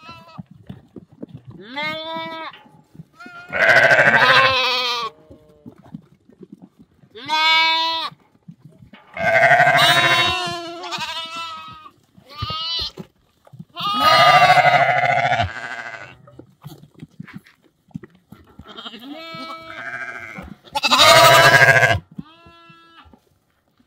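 Goats and sheep bleating, several animals calling in turn at different pitches, about ten quavering calls each lasting up to a couple of seconds, with short pauses between.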